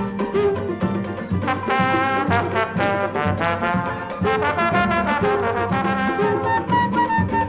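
Instrumental break in a samba recording: the band plays the tune between sung verses, with no vocals.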